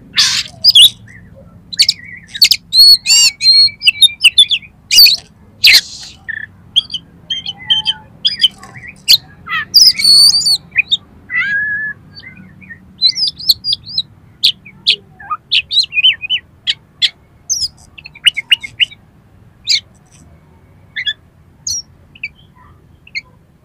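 Oriental magpie-robin (kacer) singing loudly: a rapid, varied run of whistled notes, trills and short chattering phrases, densest in the first half and growing sparser toward the end.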